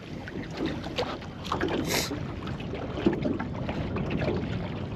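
Wind buffeting the microphone and small waves lapping against a small aluminium boat's hull, with scattered light knocks and clicks throughout and a brief hiss about two seconds in.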